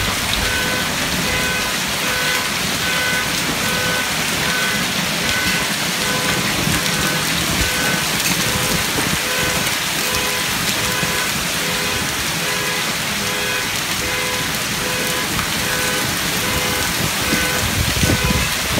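Heavy hail pelting a lawn and an inflated protective car cover in a dense, steady clatter. Under it, a short electronic beep repeats about every two-thirds of a second.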